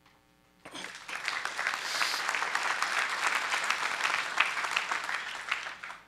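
Audience applauding, starting just under a second in and dying away near the end.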